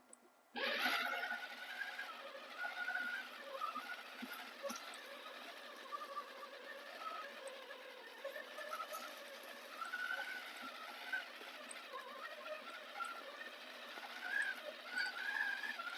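Electric motor and gear whine of an RC rock crawler driving over a trail. The pitch wavers up and down as the throttle changes, with scattered small clicks.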